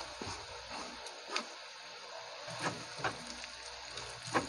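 Wooden spatula tapping and scraping against a wok while stirring frying pork, garlic, onion and chopped chilies, over a faint steady sizzle. A few sharp taps stand out.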